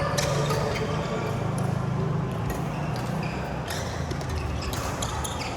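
Badminton rally: sharp racket hits on the shuttlecock, a few at irregular intervals, over a steady low hum of the hall.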